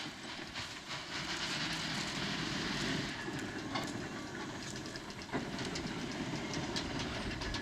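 Erie Type A steam shovel at work: a hiss of steam over the first three seconds, with a dense mechanical rattle and clatter throughout and one sharp knock about five seconds in.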